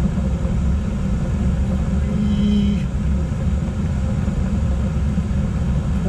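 Trane gas package unit running in heating mode, burners lit and its fans going: a steady low rumble.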